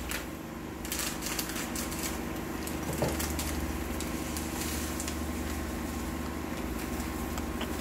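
A plastic breadcrumb packet crinkling as it is handled and shaken, breadcrumbs pouring out onto a plate, in dense irregular crackles from about a second in.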